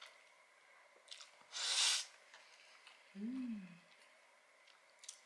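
A mouthful of spaghetti slurped up with a short, loud rush of air about two seconds in. A closed-mouth 'mm' hum that rises and falls follows while she chews, with a few faint clicks around it.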